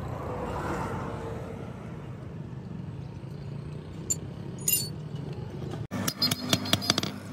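A low, steady engine-like rumble with a couple of faint metallic clinks. After a sudden cut near the end comes a quick run of light hammer taps, about five a second, on a steel sickle blade resting on a block anvil.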